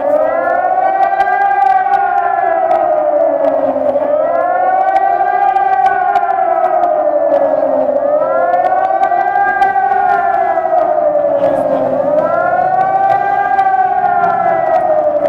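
Civil defence warning siren sounding a wavering tone that rises and falls about once every four seconds, during a test alarm. This is the German public warning signal.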